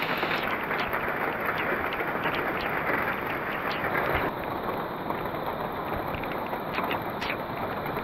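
Heavy rain pouring down in a forest: a steady hiss with sharp drop hits close by now and then.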